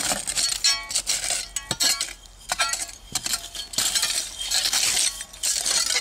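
Glass clinking: a run of short clinks and brief ringing taps from bottles and broken glass, with stretches of scraping between them.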